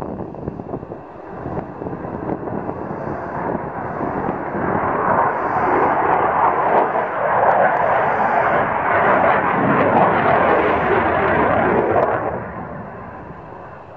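Lockheed Martin F-35A Lightning II fighter jet passing overhead in a banking turn, its single F135 turbofan's jet noise swelling over several seconds. It peaks for about six seconds, then fades from about twelve seconds in.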